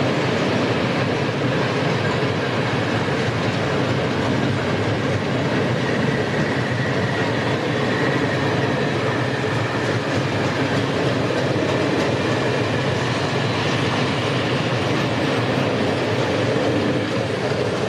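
Freight train of loaded Eaos open wagons carrying coal fines rolling past, with steady wheel-on-rail noise. The last wagon goes by near the end.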